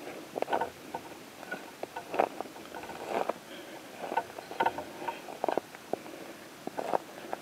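Footsteps crunching and rustling through dry grass and brush: irregular crunches and clicks, a few of them louder, with no steady rhythm.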